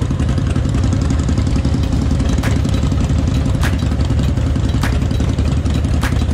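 Harley-Davidson V-twin engine idling in a steady low pulse, with other motorcycles idling around it. A faint click comes about every second and a bit.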